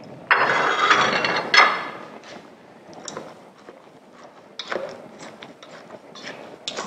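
A utensil scraping and knocking against a stainless steel mixing bowl as boiled potatoes are stirred and mashed by hand. It opens with a loud, ringing metal scrape lasting about a second and a half, then lighter scrapes and taps come on and off.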